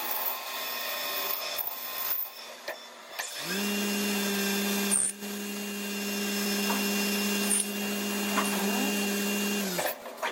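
CNC lathe machining with carbide tooling: uneven scraping cutting noise, then about three and a half seconds in the spindle speeds up to a steady hum with a faint high whine, running evenly until it winds down and stops near the end.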